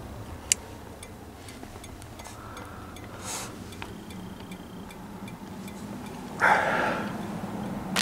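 Handling and movement noises: a sharp click about half a second in, faint scattered ticks and rustles, and a louder scuffing noise near the end.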